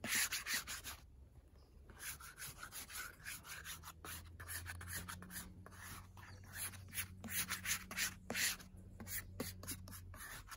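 Repeated short scraping and rubbing strokes of a flexible plastic dough scraper and a hand across a floured tabletop, working flour in under a ball of bread dough.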